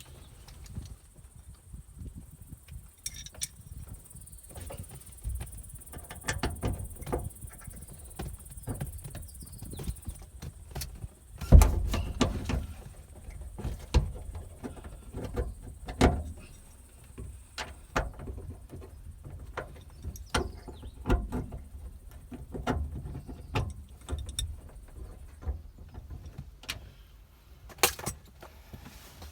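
Irregular knocks, taps and clicks of hands-on work on the kei truck's doors and glass, with one louder thump about a third of the way through.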